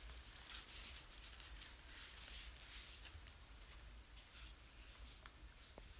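Faint rustling and crinkling of packing wrap in uneven spells, with a few small clicks, as a model plane's drop tank is unwrapped by hand.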